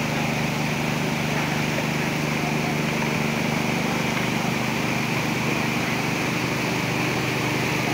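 Floodwater rushing steadily over the edge of a low river causeway, with a steady low drone beneath the rush.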